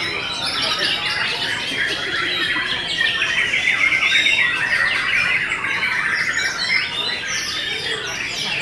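Several caged songbirds singing at once, a dense overlapping mix of whistles, chirps and rapid chatter. A fast trill of repeated notes rises above the rest near the middle.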